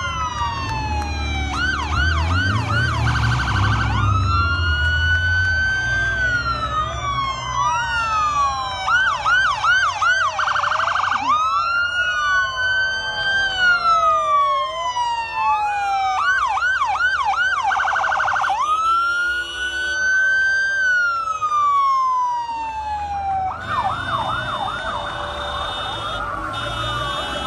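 Several emergency vehicle sirens sounding at once, slow rising and falling wails that switch several times into short stretches of fast yelping, with low engine rumble from the passing convoy beneath.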